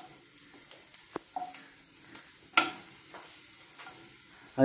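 Chopped ginger and garlic frying in coconut oil in a nonstick frying pan, with a faint sizzle. A wooden spatula stirs and taps the pan; the sharpest tap, about two and a half seconds in, is the loudest sound.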